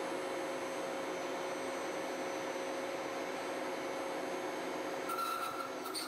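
A heavy CNC crankshaft milling machine cutting a large crankshaft, giving a steady mechanical whir under a few steady hum tones. A brief higher tone joins about five seconds in.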